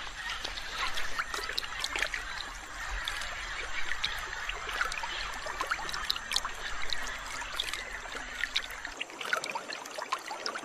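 Shallow river water trickling and lapping, with many small drips and splashes, as a large anaconda moves through the shallows.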